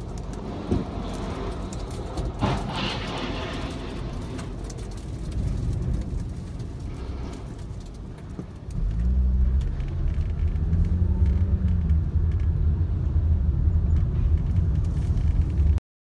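A car driving through a violent windstorm, heard from inside the cabin: a continuous low rumble of engine, road and wind. It swells to a much louder, heavier rumble about nine seconds in and cuts off suddenly near the end.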